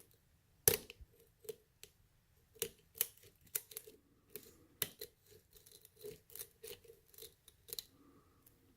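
Metal lock pick clicking and scraping against the pins of a pin-tumbler lock being picked: a run of irregular sharp clicks.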